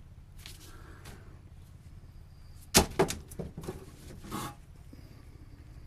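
Coils of electrical cable being handled and shifted: a sharp knock about three seconds in, followed by a few smaller knocks and rustles.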